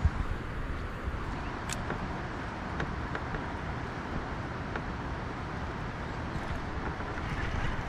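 Steady wind rumbling on the camera microphone over the wash of river water around a kayak, with a few faint ticks about two and three seconds in.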